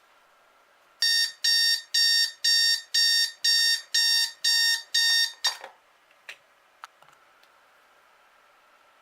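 An electronic alarm beeping nine times, about two beeps a second, then stopping; a few faint clicks follow.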